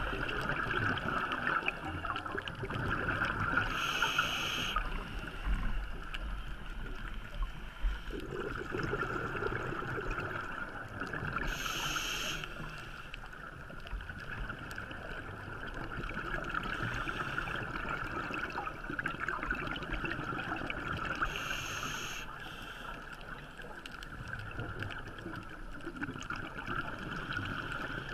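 Scuba diver breathing through a regulator underwater: three short hissing inhales about eight to nine seconds apart, with bubbling exhales between them, over a steady hum.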